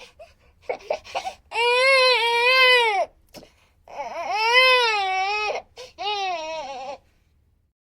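A baby crying: a few short catches of breath, then three long wavering wails with brief gasps between them. It stops about a second before the end.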